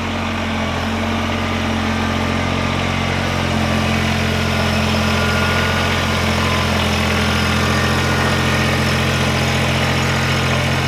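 Kubota BX2380 compact tractor's three-cylinder diesel engine running at a steady low speed as the tractor pulls forward.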